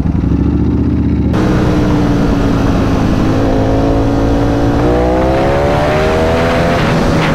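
Ducati Panigale V4 S's V4 engine pulling hard from a standstill under full acceleration. The engine note opens up suddenly about a second in, climbs steadily in pitch with rising revs, then drops back near the end.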